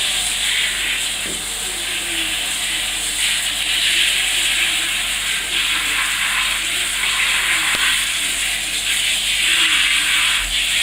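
Shower water spraying steadily, a constant hiss.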